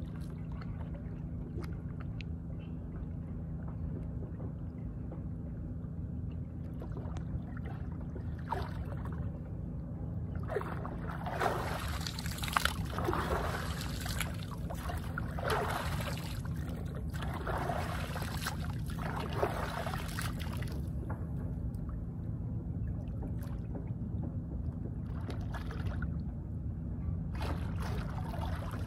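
Water splashing and sloshing in irregular bursts, as a swimmer moves through the water close to the camera, over a steady low rumble.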